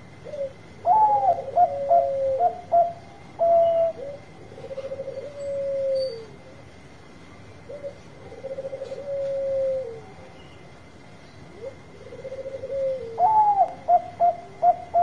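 Caged zebra dove (Bangkok-bred perkutut) singing: bouts of clipped, higher coos followed by lower rolling, purring trills, repeated several times, with a fresh bout of high coos starting near the end.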